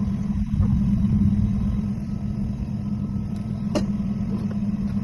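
Truck running: a steady low engine and road drone, with a single sharp click near the end.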